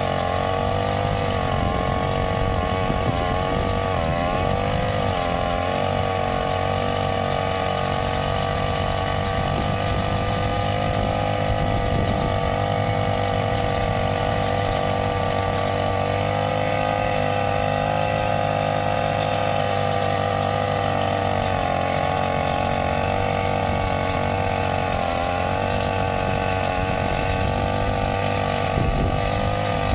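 A small petrol brush-cutter engine, rigged to drive a tiller head at the end of its shaft, running steadily at working speed. Its pitch wavers briefly a few times, in the first few seconds and again near the end, as the tines take load in the soil.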